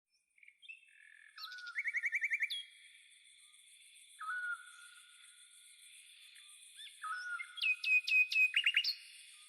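Bird chirps, fast trills and whistled notes over steady high tones. A short whistled figure repeats about every three seconds, like a looped birdsong backing track.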